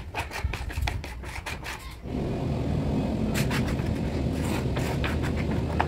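A small flat spreader scraping wet wood glue across a plywood panel in short, irregular strokes. From about two seconds in, a steady low hum runs under the scraping.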